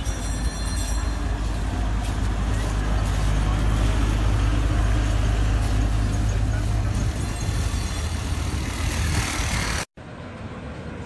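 Tourist road train's engine running as it drives past along a street, a steady low hum with tyre and street noise that grows louder toward the middle. The sound cuts off abruptly near the end, giving way to a quieter street scene.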